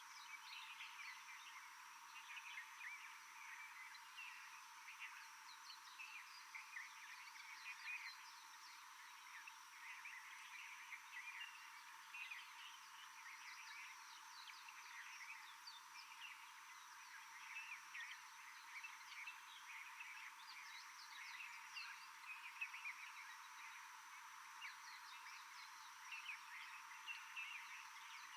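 Faint tropical forest ambience: a dense, continuous chorus of short high chirps from small animals, over a steady high-pitched hiss.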